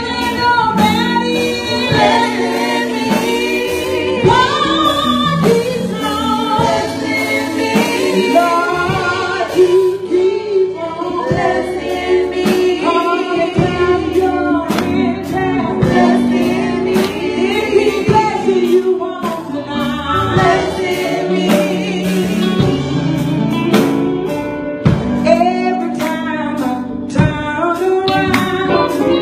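A women's gospel vocal group singing together over music accompaniment with a steady beat.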